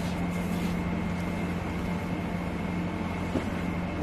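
A steady mechanical hum, an even drone with a constant low tone and a faint high whine, and a single light tap about three and a half seconds in.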